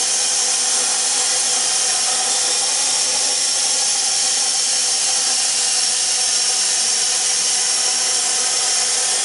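Plasma torch cutting a steel pipe: a steady, loud hiss with a thin high whine in it.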